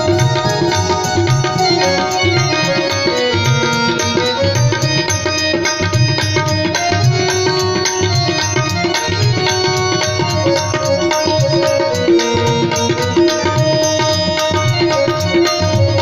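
Music with drumming, steady throughout.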